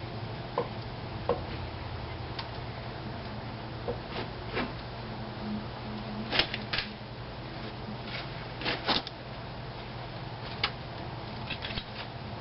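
Scattered light clicks and metallic clinks from hand work on the front brake: the unbolted caliper and tying wire being handled while the caliper is hung up out of the way. A steady low hum sits under it.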